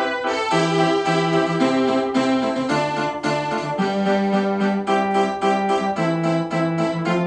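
Keyboard music: quick, evenly repeated chords over a bass line that moves to a new note about every half second.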